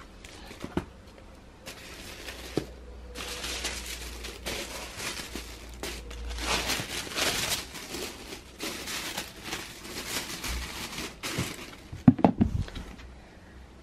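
White tissue paper rustling and crinkling as it is folded over a dust bag inside a cardboard gift box. About twelve seconds in come a few quick knocks as the box lid is fitted on.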